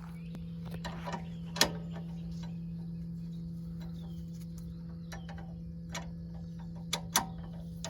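Scattered metallic clicks and knocks of hands-on work at a lawn tractor's front wheel, two of them sharper, at about a second and a half in and near the end, over a steady low hum.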